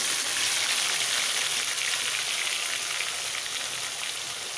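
Hot frying oil in a pan sizzling loudly as wet ground masala paste is dropped in, a dense steady crackle that eases a little toward the end.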